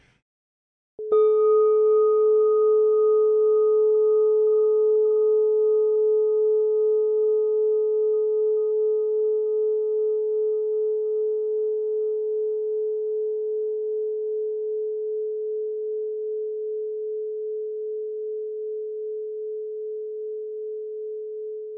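A bell struck once, about a second in. It rings one steady mid-pitched tone with fainter higher overtones that die away first, while the main tone fades slowly with a gentle wavering.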